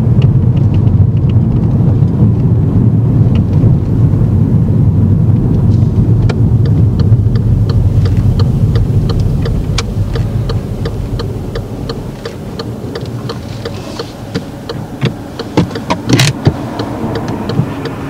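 Engine and road noise inside a moving car's cabin, a steady low rumble that grows quieter in the second half as the car slows. Light clicks run through it, with a few sharper knocks near the end.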